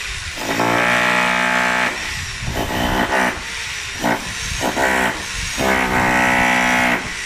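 Electric demolition hammer chiselling into the reinforced concrete of a balcony slab, run in bursts: a long run about half a second in, several short stabs, then another long run near the end.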